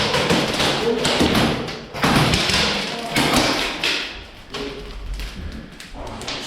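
Irregular thumps and taps, with brief fragments of voices in the background.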